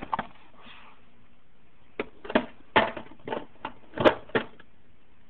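Metal hand tools knocking and clattering in a toolbox drawer as they are handled. There are two knocks at the start, then a quick run of about eight knocks, the loudest about four seconds in.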